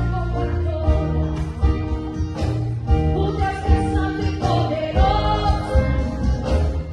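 Gospel worship song: a woman singing held notes over band accompaniment, with a strong bass and a beat.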